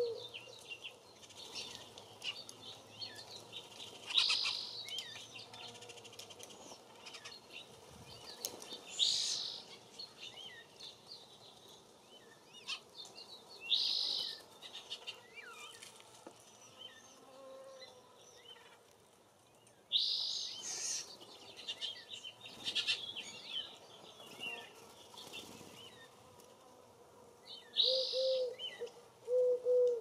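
Outdoor birdsong: several songbirds chirping and calling, with short bursts of harsh chatter every few seconds. A low, repeated cooing joins near the end.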